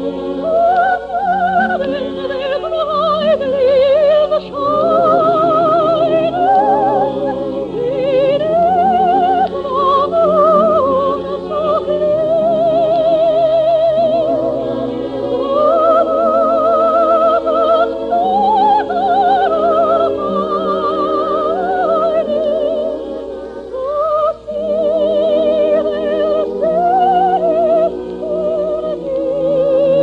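Operatic soprano singing a song with wide vibrato over orchestral accompaniment, in an old 1952 radio broadcast recording.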